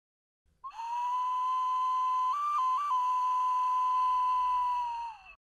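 A single breathy flute-like note, held steady for about four and a half seconds, with two quick flicks up in pitch near the middle.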